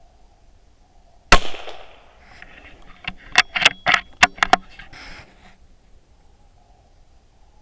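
A single hunting gunshot with a short echoing tail about a second in. A couple of seconds later comes a quick run of about eight sharp clicks.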